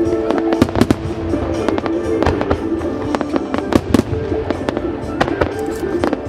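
Fireworks shells from a starmine barrage bursting in rapid, irregular succession, several sharp bangs a second, with the show's music playing underneath.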